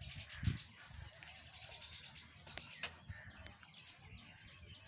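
Small birds chirping in rapid repeated notes, with a single low thump about half a second in and two sharp clicks near the middle.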